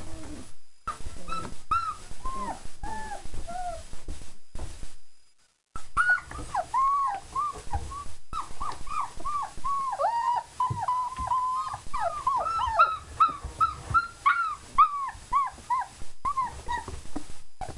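Four-week-old German Shepherd puppies whining and whimpering in short, high, falling cries. A few come in the first seconds, then a dense run of several a second for most of the rest.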